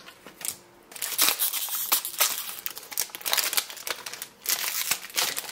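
Crinkling and rustling of a trading-card booster pack wrapper being torn open by hand. It is a dense, crackly run that starts about a second in and stops just before the end.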